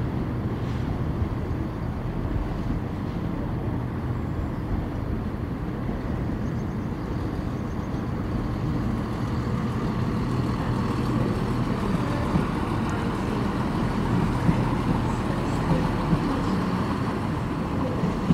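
A diesel train's engine running at the station: a steady low rumble with a faint hum, getting a little louder in the second half.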